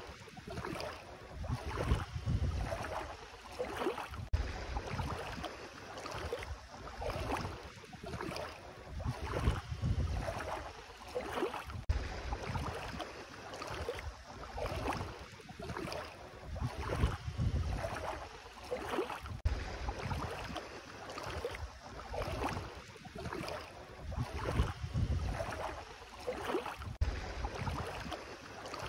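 Bare feet wading through ankle-deep seawater, the water splashing and swishing with each step in a steady rhythm of roughly one step every second or so.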